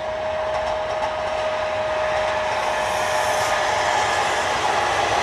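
Electric passenger train of coaches approaching and running past, its rolling noise growing steadily louder as it nears.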